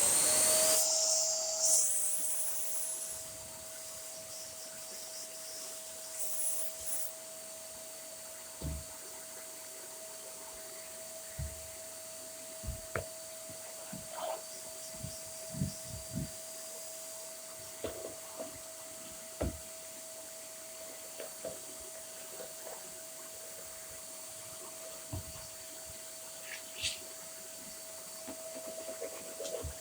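Dyson Small Ball upright vacuum cleaner switched on. Its motor spins up with a rising whine and is loud for the first couple of seconds, then settles into a steady hum and hiss. Occasional short knocks and clicks come from the tool being worked.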